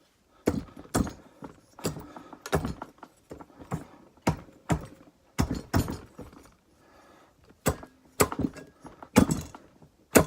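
Repeated hand strikes on a stuck cylinder head of a 1985 Honda 250SX engine, dull knocks coming irregularly, often in pairs, to break the head free of the cylinder.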